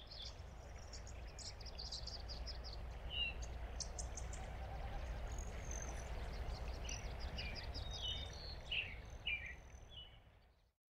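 Nature ambience of several birds chirping and calling, short quick chirps and brief falling calls, over a steady low rumble. It fades in at the start and fades out shortly before the end.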